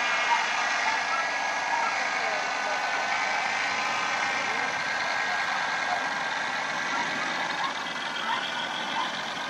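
Paramotor engine droning steadily in flight, heard from the ground as a distant buzzing hum whose pitch wavers slightly.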